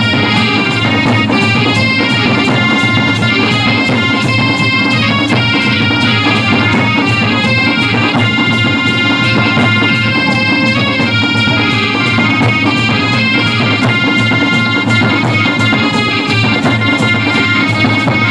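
Loud music: a reedy lead melody moving in short steps over a steady, regular drum beat.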